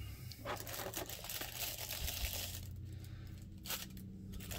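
Thin clear plastic packaging rustling and crinkling as it is handled, with scattered small plastic clicks and taps.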